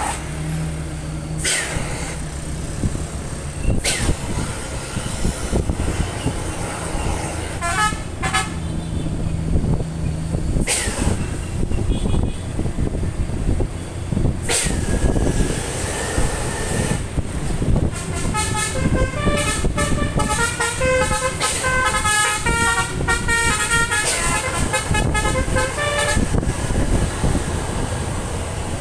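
Diesel tour buses idling and moving off, with several sharp air hisses, then a Bristrans bus's telolet horn, a multi-trumpet air horn, playing a rapid stepping tune for about eight seconds starting around two-thirds of the way in.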